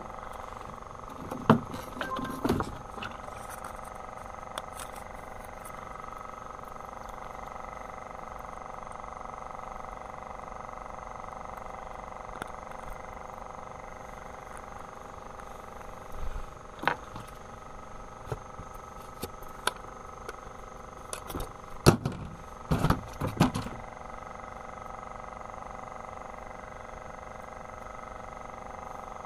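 A small boat's motor running at a steady speed, with a few sharp knocks near the start and a short cluster of knocks about three-quarters of the way through.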